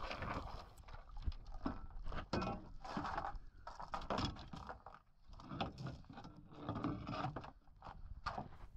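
Faint, irregular knocks, clatter and splashing as a galvanized steel anchor and its rode are hauled aboard by hand and the anchor is set down on the boat's gunwale.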